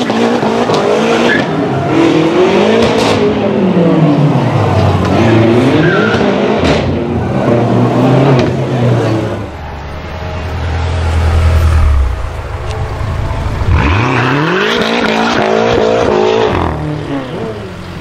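BMW M6 convertible's twin-turbo V8 revved again and again, its pitch rising and falling with each blip and echoing in a tunnel. Later it rumbles low, then accelerates hard with a rising pitch about three-quarters through.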